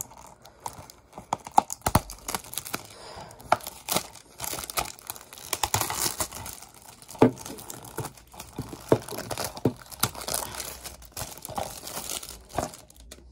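Clear plastic shrink wrap being torn and peeled off a DVD case, crinkling and crackling with many scattered sharp clicks.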